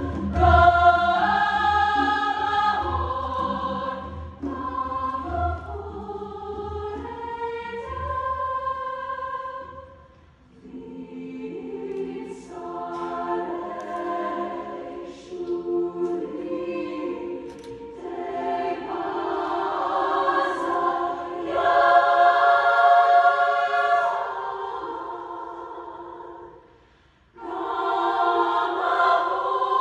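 Women's choir singing in several parts. A low repeated pulse runs under the voices for about the first ten seconds. The singing breaks off briefly about ten seconds in and again near the end, then comes back at full strength.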